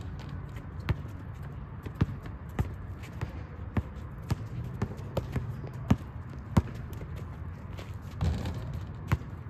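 Basketball being dribbled on a hard court: a string of sharp bounces, roughly one a second and at times quicker, over a steady low rumble.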